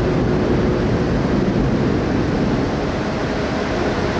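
Steady low rumble of a car ferry's engines and propellers churning the water as it comes into the dock, with a faint steady hum over it early on.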